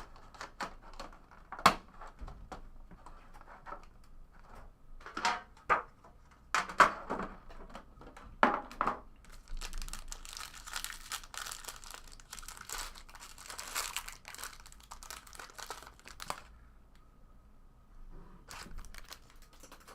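Trading card packaging being torn open and handled: crinkling wrapper with scattered clicks and taps, a long stretch of dense crinkling about halfway through, then quieter rustling.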